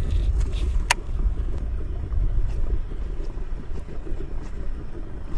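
Wind buffeting the microphone: an uneven low rumble, with a single sharp click about a second in.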